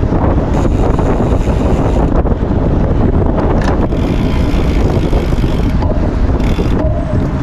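Wind buffeting the microphone of a rider on a moving gravel bike: a loud, steady low rumble with hiss above it.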